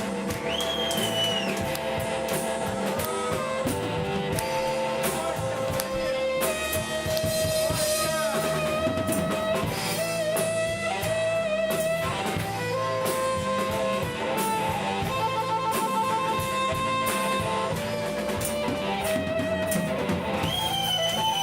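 Live rock band playing an instrumental break: electric guitar, bass and drum kit, with a lead line of held and bent notes.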